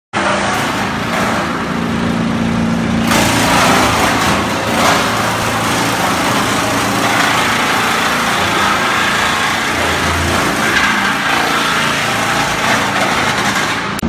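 LIDA LDBC1000 mobile wood chipper running under load as a tree trunk is fed into it. The steady engine hum is joined by a loud, dense chipping noise that grows stronger about three seconds in and keeps on.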